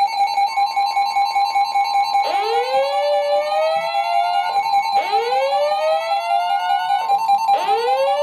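Emergency Alert System attention signal: a steady two-tone alert tone, with a rising whoop sweeping up over it three times, about every two and a half seconds, starting about two seconds in. It marks the start of a new alert, just before the spoken warning.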